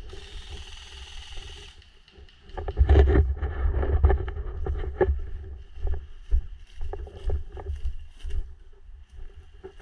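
Rumble and rustling on a body-worn camera's microphone, with irregular knocks and clicks, as of a player moving through brush. A short burst of hiss opens the sound, and the rumble is heaviest a few seconds in.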